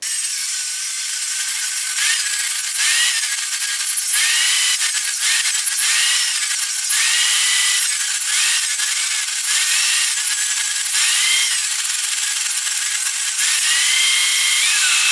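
Circular saw cutting a spinning wood blank round on a drill-driven lathe, the audio sped up five times so the whole sound is shifted high. The saw's whine rises and dips again and again as the blade is pushed through the wood.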